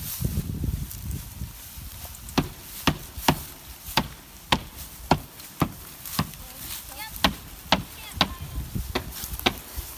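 Footsteps crunching through dry, matted grass at a walking pace, about two sharp steps a second, starting a couple of seconds in, while a bicycle is walked alongside.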